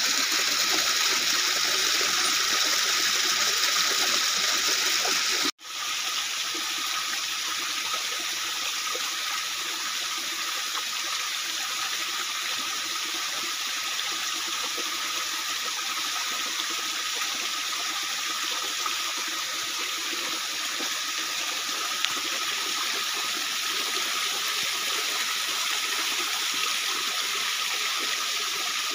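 Small rocky stream, water splashing and running steadily over stones. It cuts out for an instant about five seconds in, then carries on a little quieter.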